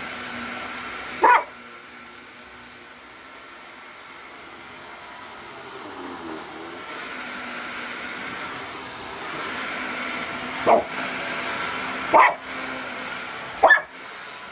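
A dog barks at a running upright vacuum cleaner: four sharp single barks, one about a second in and three close together near the end, over the vacuum's steady motor hum.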